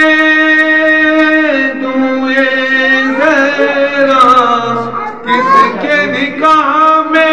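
A man singing an Urdu manqabat, holding one long note for about a second and a half, then drawing the line out in long phrases whose pitch slides up and down.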